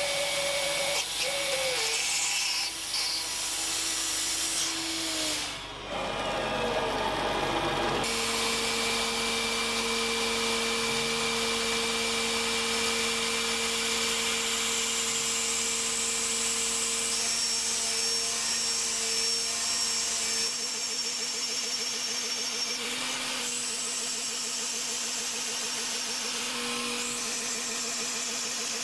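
Mafell FM 1000 router spindle on a DIY CNC mill whining steadily at about 14,000 rpm while a thread mill cuts M5 threads into an aluminium plate, over the hiss of a compressed-air blast. The sound changes abruptly about eight seconds in and again about twenty seconds in.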